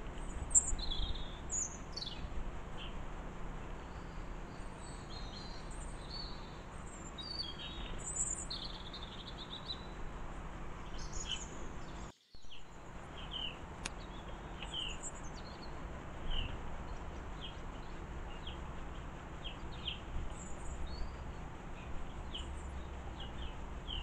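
Small garden birds chirping and twittering: many short high calls scattered throughout, over a steady low background noise. The sound cuts out completely for a moment about halfway through.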